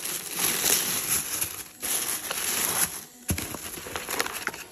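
Packaging crinkling and rustling in two long stretches as a box of pet treats is opened, followed by a few sharp clicks and shorter rustles.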